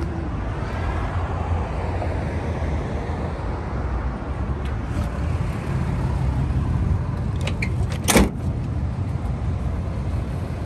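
Ram 2500's 6.7-liter Cummins inline-six turbo diesel idling, a steady low rumble. A single sharp knock comes about eight seconds in.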